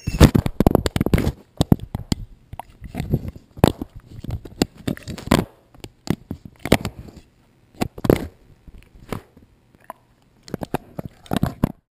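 Foxhound chewing and mouthing a GoPro camera right against its microphone: irregular loud crunches, scrapes and clicks of teeth on the plastic housing, coming in clusters with short pauses.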